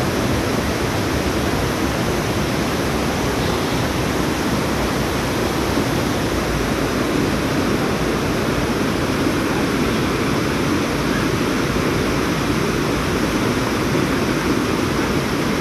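Muddy floodwater from an overflowing creek rushing across a street, a loud, steady rush of water.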